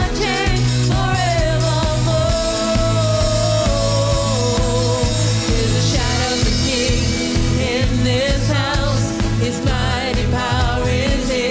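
Christian worship music: a band with a steady bass line and a wavering vocal or lead melody line.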